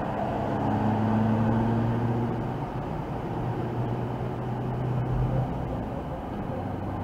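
C5 Corvette's V8 engine droning steadily at highway cruising speed, mixed with tyre and road noise, heard from inside the cabin.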